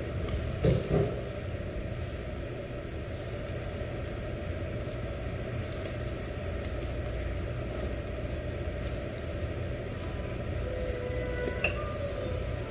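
Steady low rumble of a yakiniku tabletop grill's smoke extraction and the restaurant's air handling. Two knocks of tableware come about a second in, and a light clink of dishes comes near the end.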